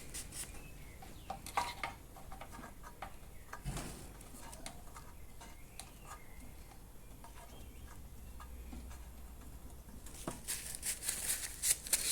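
Light handling noises: scattered small clicks and rustles, growing into a quicker run of clicks near the end.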